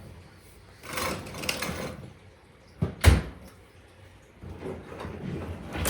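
Scraping and sliding handling noises from work on a dishwasher being disconnected, with a sharp knock about three seconds in, then more scraping and rustling near the end.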